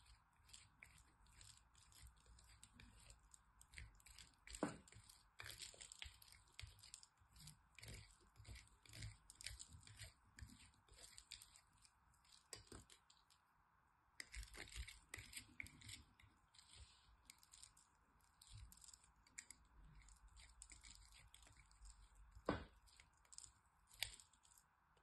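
Bar of soap grated on a small handheld metal grater: quick, irregular scratchy rasping strokes with a short pause about halfway through.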